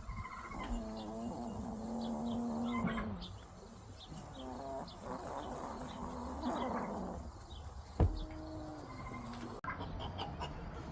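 Chicken snoring in its sleep: a few long, drawn-out, steady-pitched snores, the first the longest. A sharp click comes about eight seconds in.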